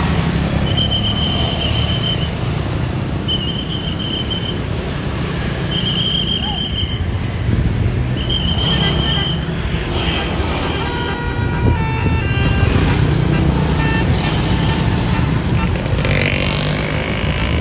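Bus basuri 'telolet' horn: four identical high notes of about a second each, then a fast run of changing notes playing a tune, over the steady rumble of bus engines.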